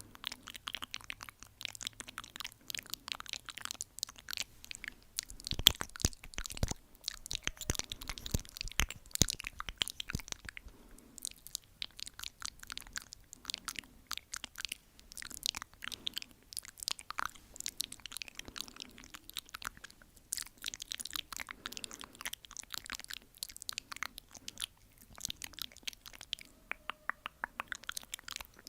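Fast, irregular ASMR tapping and clicking close to the microphone, many crisp clicks a second, with a run of louder ones a few seconds in.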